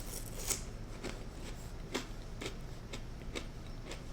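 Close-up chewing of toasted crostini: a string of sharp, irregular crunches and mouth clicks.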